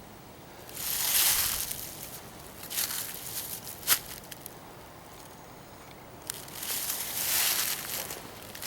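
Footsteps crunching through dry leaves and brush in uneven stretches, with a pause in the middle and a single sharp snap about four seconds in.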